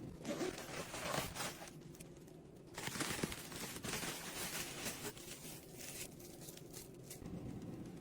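Handling noise from a camping utensil set and its packaging: two spells of rustling, the first in the opening second and a half, the second from about three to five seconds in.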